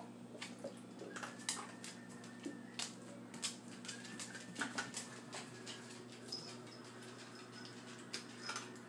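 Scattered light clicks, taps and scuffs of a kitten and a dog playing on a woven rug and tile floor, over a steady low hum.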